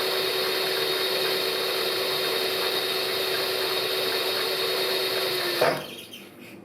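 Milling machine spindle running steadily with a slitting saw arbor fitted, a constant hum with a high whine; about five and a half seconds in there is a brief clunk and the machine stops suddenly. The saw has been spinning loose on its unkeyed arbor, which the machinist puts down to the spindle running backwards and loosening the nut.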